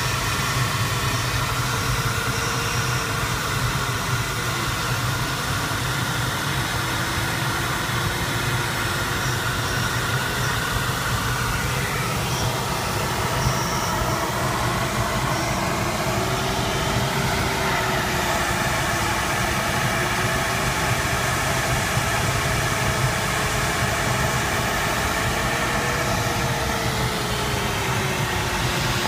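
Steady rush of airflow in the cockpit of an Arcus M glider in flight, with a faint variometer tone slowly rising and falling in pitch as the glider meets lift and sink.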